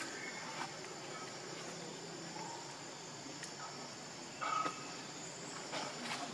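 A steady outdoor chorus of insects, a high continuous buzz with a thin steady whine above it. About four and a half seconds in, a short louder squeak cuts across it.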